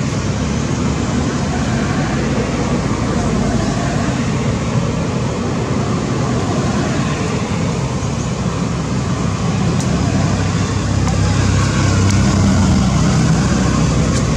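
Steady, loud rumbling noise with a hiss above it, heaviest in the low range and swelling slightly near the end.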